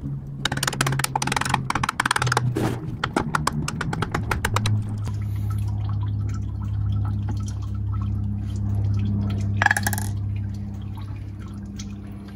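A rapid run of hammer blows knocking on a stuck spin-on oil filter for about the first four seconds. Then engine oil runs from the holed filter into a metal drain pan under a steady low hum, with one short knock near the end.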